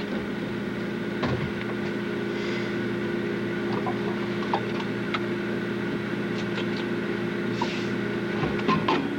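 Refrigerator running with a steady electrical hum, with a few light clicks and rustles over it.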